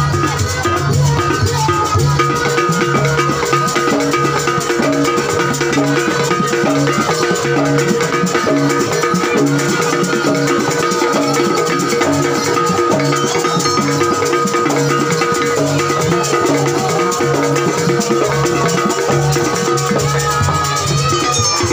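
Live jaranan ensemble music: drums and rattling percussion keep a fast, steady beat under a repeating pattern of tuned notes and a long held melody tone.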